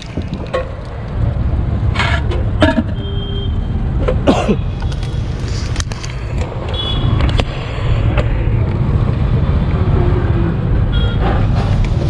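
Gas burner under a wok running with a steady low roar, with a few sharp clinks of metal on the wok in the first half.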